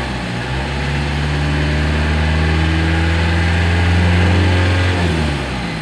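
Mitsubishi L300 diesel engine running steadily during a smoke test after a fuel-saver install. It grows slightly louder, then its speed drops about five seconds in.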